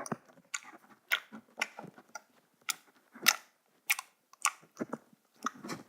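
Homemade slime squished and pulled by hand, giving an irregular run of wet clicks and pops.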